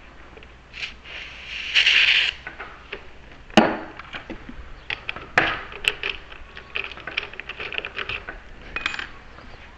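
Freshly cut metal keys clinking and clicking as they are handled and tried in lock cylinders, with one loud sharp click about three and a half seconds in and a run of small jingles and clicks after it.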